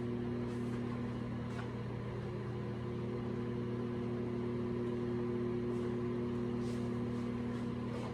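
Microwave oven running, a steady electrical hum, while macadamia nuts on a paper plate toast inside. A few faint ticks sound over the hum.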